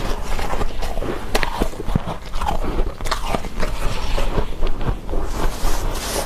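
Close-miked crunching as soft freezer frost is bitten and chewed, a dense run of small crackling clicks, with gloved hands scooping into the heap of frost.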